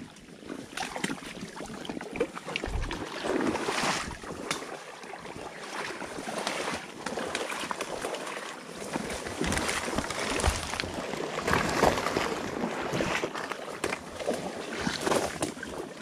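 Footsteps in waders sloshing and splashing through shallow water and soft mud, an uneven run of splashes and squelches with small knocks.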